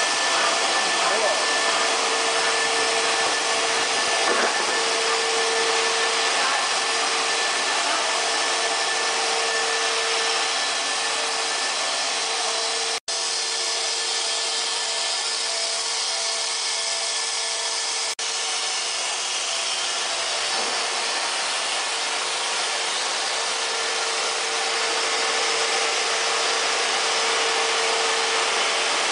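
Cable coating extrusion line running: steady whirring machinery noise with a constant hum, broken by two momentary dropouts around the middle.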